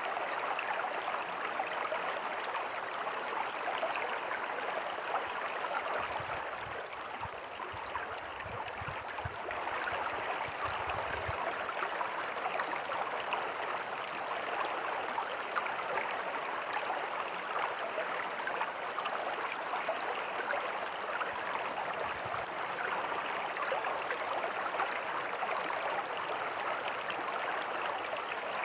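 Small creek and tiny waterfall flowing over rocks: a steady rush and babble of water. It is briefly a little softer about a quarter of the way in.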